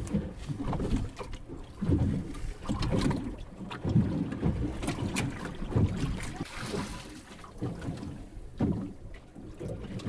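Gusty wind buffeting the microphone and water slapping against the hull of a small boat lying still on the sea, with a few light clicks.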